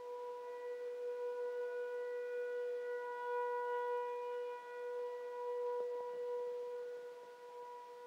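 Nuclear power plant outdoor emergency warning siren sounding a steady, unchanging tone during its scheduled test, the loudness slowly swelling and fading.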